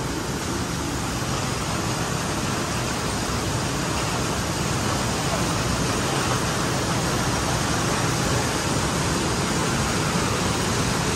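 Jute mill processing machinery running with a steady, dense mechanical noise.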